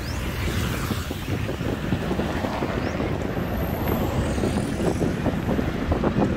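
Wind buffeting the microphone while cycling, a steady low rumble with gusty flutter.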